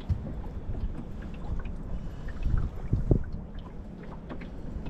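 Water lapping and slapping against the hull of a small boat over a low rumble, with scattered small clicks; the loudest slaps come about two and a half to three seconds in.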